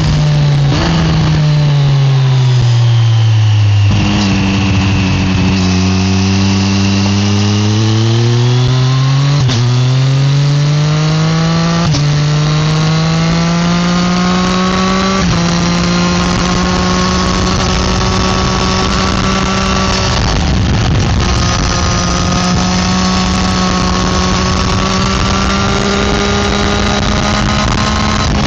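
Triumph Street Triple 765 RS inline three-cylinder engine and exhaust under way, heard from a microphone on the rear footpeg. The revs fall at first, then climb in steps with quick drops at each upshift, then hold nearly steady at cruising speed, with a brief lift off the throttle about twenty seconds in.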